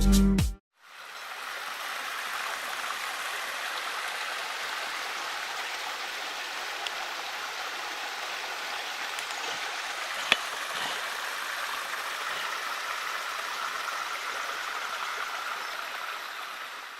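Waterfall water running in a steady, even rush, with one sharp click about ten seconds in.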